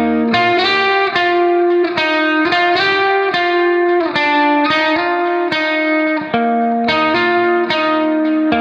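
Background music: a steady melody of plucked guitar-like notes.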